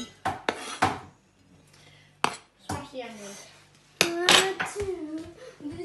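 A cooking utensil clinking and knocking against a saucepan while diced onions are stirred, a few sharp strikes, the sharpest about two seconds in. Voices talk over it in the second half.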